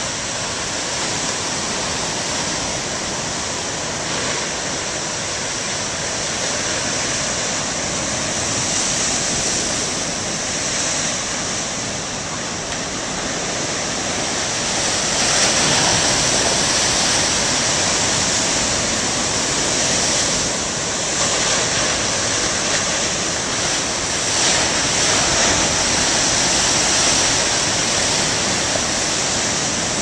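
Heavy ocean surf: large waves breaking and rushing ashore in a continuous wash, swelling louder about halfway through.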